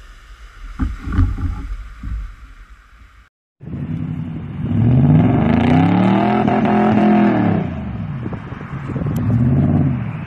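An SUV splashing through a mud puddle for the first three seconds, with low thumps and sloshing water. After a short break, a pickup truck's engine revs up and falls back twice as it drives on a grassy slope; this engine is the loudest sound.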